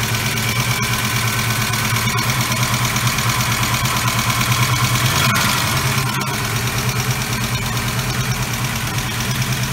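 Ford 5.0 L (302 cu in) small-block V8 idling steadily, with an even pulse.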